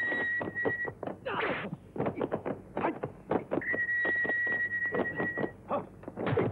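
Dubbed kung fu fight sound effects: a rapid, irregular series of punch and kick impacts, with a short shout about a second and a half in. A steady high tone is held twice over the hits.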